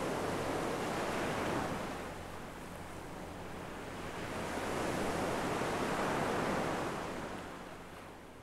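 Ocean surf washing in, two slow swells of waves, the second fading away near the end.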